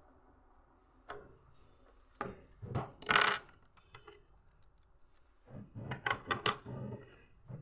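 Small plastic Lego pieces clattering and clicking as they are handled, in irregular bursts, loudest about three seconds in.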